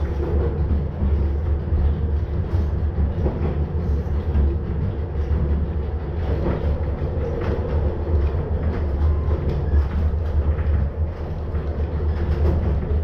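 ČSD class EM 29.0 electric rack-railway unit running along the narrow-gauge track, heard from inside the driver's cab: a steady low rumble with a faint hum and scattered clicks of the wheels on the rails.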